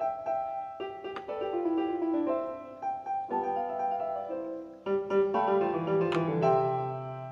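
Solo piano music playing a melody with chords, fading out near the end.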